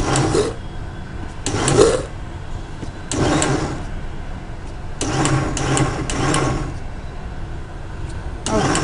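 Electric mixer-grinder motor run in short pulses, about five bursts with a longer one in the middle, grinding a thick mutton and semolina haleem mixture to a paste in a stainless-steel jar with no water.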